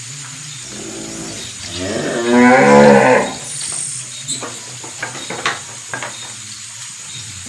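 A cow mooing: a short, fainter moo about a second in, then one long loud moo that rises in pitch and then holds. A few faint clicks follow.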